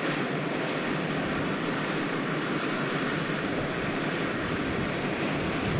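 Fire engine running steadily: a constant rumble with a rushing hiss.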